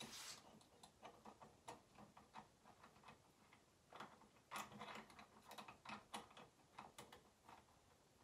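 Faint, irregular clicking and ticking of small metal parts: washers and nuts being fitted onto carriage bolts by hand, with a quicker run of clicks about halfway through.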